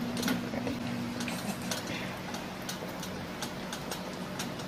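Wooden spoon stirring a thick chicken stew in a metal pot, giving scattered soft clicks and taps over a steady low hum.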